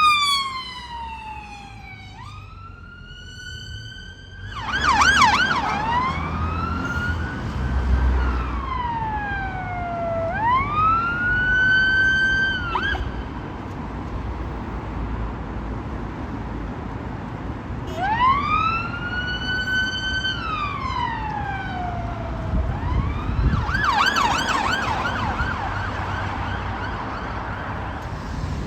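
Emergency vehicle siren sounding a slow rising and falling wail, switching to a fast yelp about five seconds in and again near the end. It cuts off abruptly about thirteen seconds in and starts up again about five seconds later, over a low road and traffic rumble.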